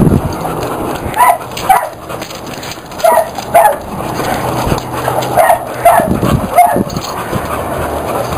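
Pit bull barking in short, high yips during rough play, about seven in all, mostly in pairs about half a second apart.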